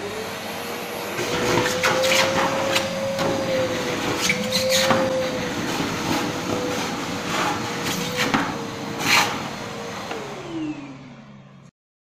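Kärcher T 10/1 dry-cleaning vacuum cleaner switched on and running steadily while its hose sucks water out of a bucket, with repeated gurgling surges as the water is drawn up. About ten seconds in it is switched off and the motor winds down.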